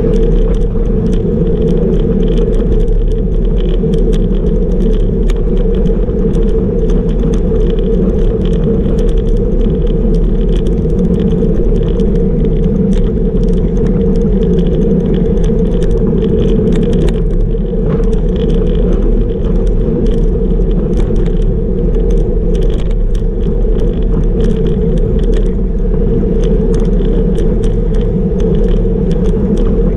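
Steady wind and road noise on a camera riding along on a road bicycle at about 40 km/h, with many small rattles and clicks from the tyres and bike on the road surface.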